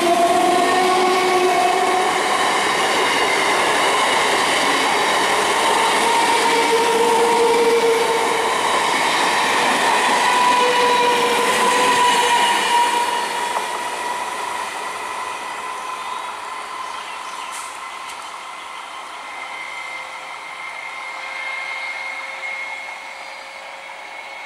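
EMU electric local train passing close by, its wheels running on the rails with steady high squealing tones over the rolling noise. It is loud for about thirteen seconds, then fades as the train moves away.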